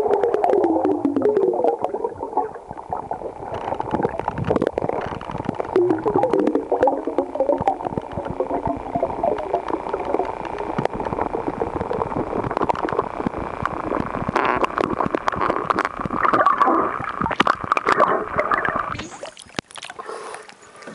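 Water gurgling and bubbling around a camera held underwater, with many small clicks and warbling tones. About nineteen seconds in the camera breaks the surface, and the sound turns suddenly thinner and quieter.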